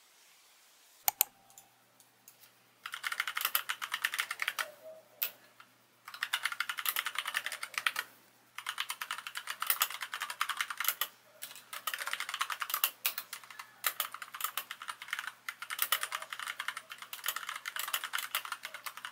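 Typing on a backlit mechanical keyboard: runs of fast key clacks a few seconds long with short pauses between, after two sharp clicks about a second in.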